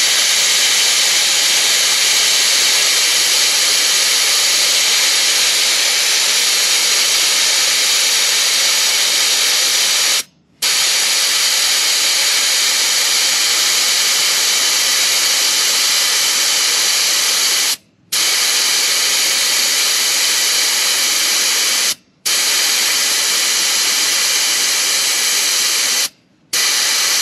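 Air hissing steadily out of a 4WD's tyre through an ARB tyre deflator whose valve core has been pulled, airing the tyre down from about 40 psi toward 15 psi for soft sand. The hiss is loud and even and stops abruptly four times for a moment.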